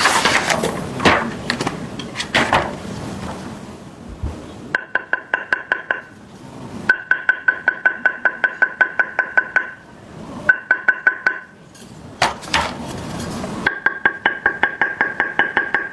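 Table tennis blades being knocked rapidly to sound them, in several runs of quick sharp taps, about seven a second, each tap with a short ring. The blades are being compared by their tapping sound, and they sound almost the same.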